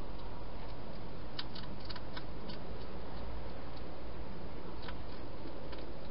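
Hedgehog eating from a bowl inside a plastic feeding box: scattered sharp clicks and crunches, a quick cluster between one and two and a half seconds in and a few more near the end, over a steady hiss.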